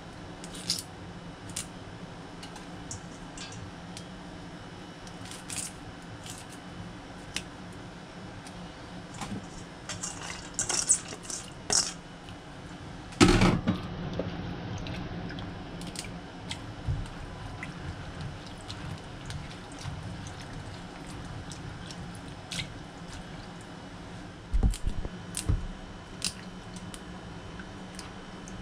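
Hands working pickleweed stems in a bowl of water: small splashes and drips, with scattered light clicks and snaps as branches are pulled off the stems. A louder splash comes about 13 seconds in, and a few soft thuds follow near the end.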